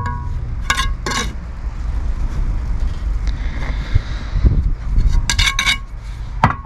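Bricklaying tools clinking against each other and the blocks: sharp ringing metallic clinks, two about a second in and a quick run of three or four near the end, over a steady low rumble.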